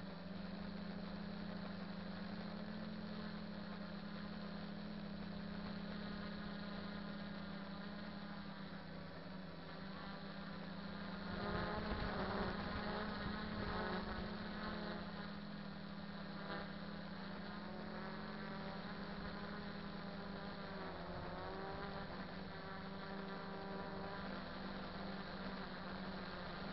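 Quadcopter's 2212 1000KV brushless motors and propellers buzzing steadily in flight, heard from the drone's own camera. About halfway through the buzz gets louder and wavers in pitch as the throttle changes.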